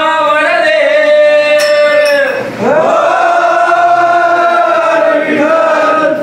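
A group of men singing a devotional bhajan together in long held notes, pausing briefly for breath about two and a half seconds in before the next line.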